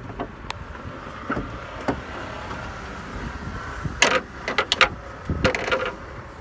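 A car's hood being lowered and latched shut: two quick clusters of sharp clicks and knocks, the first about four seconds in and the second a second later.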